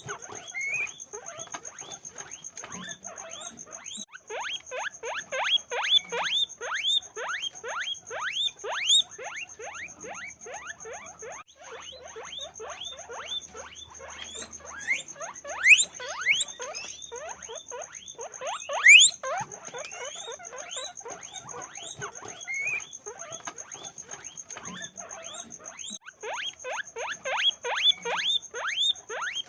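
Several guinea pigs squeaking constantly, a dense chorus of short rising squeaks several times a second, with a few louder, shriller calls standing out.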